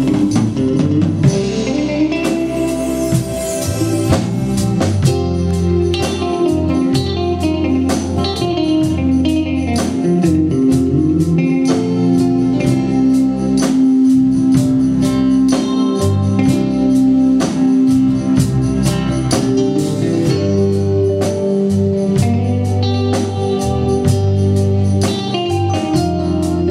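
Live band playing an instrumental break with no singing, guitar to the fore over a steady drum beat and sustained bass and keyboard notes.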